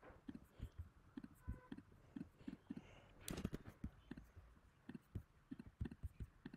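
Faint clicks and soft taps from a computer mouse and keyboard, about two a second, with one sharper click a little past three seconds in.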